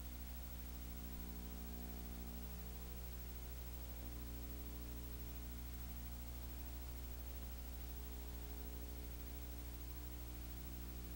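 Steady low electrical hum with a stack of evenly spaced overtones, under a faint even hiss and nothing else: the empty sound track of a film transfer with no recorded game sound.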